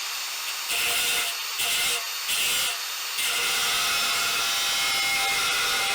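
Angle grinder with a cutting disc spinning freely, then biting into a steel plate in three short touches before settling into a steady cut about three seconds in. The plate is clamped with its long end sticking out past the bench, a setup that lets it vibrate and spoils the cut.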